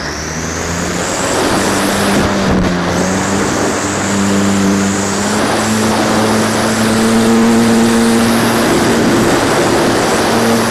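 Radio-controlled YAK-54 aerobatic model plane's motor and propeller buzzing, the pitch stepping up and down several times with throttle changes, over wind noise on the microphone.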